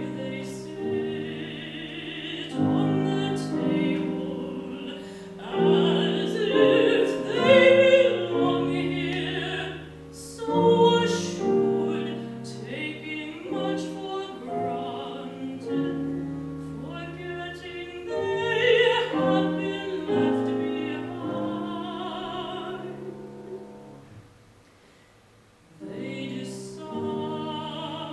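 A woman singing a classical art song in a trained voice with vibrato, accompanied by piano. Near the end the music dies down briefly before voice and piano pick up again.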